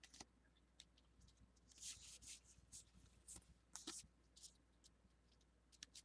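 Faint crinkling and scraping from a foil Pokémon booster pack being opened and its cards handled: a string of short, soft rustles, a little louder around the middle.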